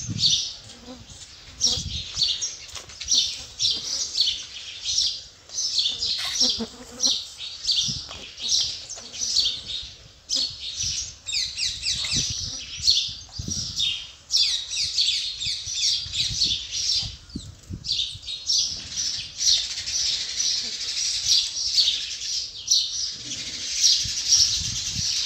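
A chorus of birds chirping rapidly and continuously, many high chirps overlapping each second, with a few brief low knocks.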